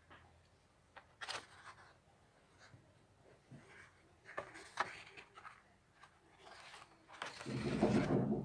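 Paper handling on the pages of a coloring book: a few light crackles and rustles, then a louder page turn near the end.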